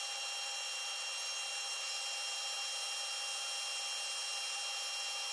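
A lathe running steadily while a sine-plate roll is hand-lapped on it: an even hiss with several steady high whining tones and no low end.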